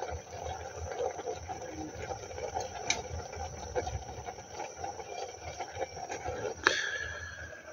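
Pot of rice boiling under a glass lid on a portable gas camping stove: a steady bubbling with small clicks. About seven seconds in, a single sharp metal clink rings briefly.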